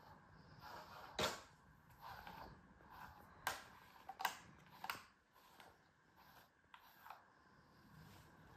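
A hand-held pet brush stroking through a cat's thick fur in soft swishes, broken by four sharp clicks a little after one second in and in the middle.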